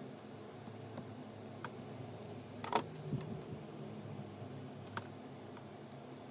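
Scattered light clicks and taps of small hard objects being handled; the loudest comes a little under three seconds in, with a few softer ones after it.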